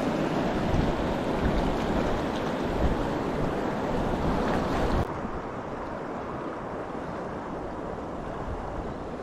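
Steady rush of flowing river water, which drops abruptly to a lower, duller level about five seconds in.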